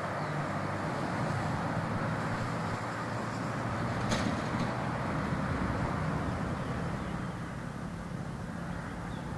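Steady rumble of road traffic with a low engine hum, and one sharp click about four seconds in.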